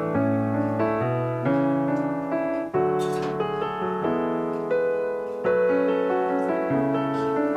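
Background piano music, held chords and notes changing about once a second.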